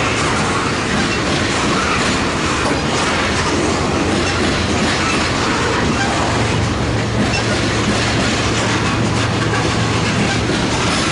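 Long Norfolk Southern manifest freight train's cars, mostly tank cars, rolling past on the rails at a steady level. About six seconds in, a low steady hum grows stronger beneath the rolling noise.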